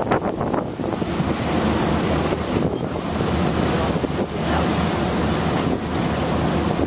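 Wind buffeting the microphone on a moving passenger ferry, over the rush of churned water in its wake and a low steady rumble.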